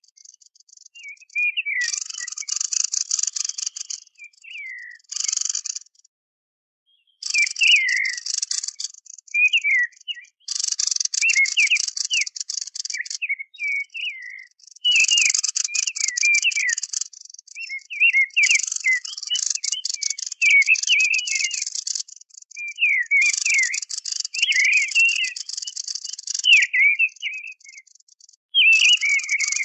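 Hunting-lure recording of the bird that bird hunters call 'kikhen al-lazzab': quick chirping and warbling notes, overlaid again and again by bursts of a high, dense buzzing trill a few seconds long. There is one brief break about six seconds in.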